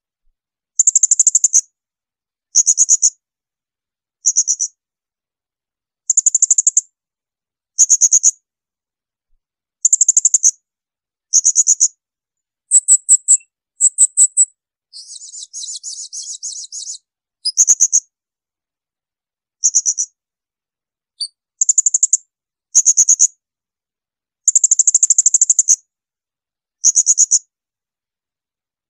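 Blue-crowned hanging parrot (serindit) giving shrill, high-pitched 'shot' calls: short bursts of quick notes repeated every second or two, with a longer buzzy, rasping call about halfway through.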